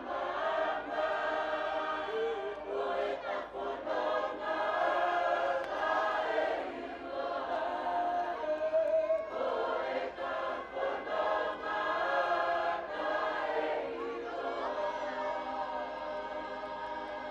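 Large group of Tongan students, boys and girls, singing a lakalaka in harmony, many voices together in sustained phrases with short breaks between them.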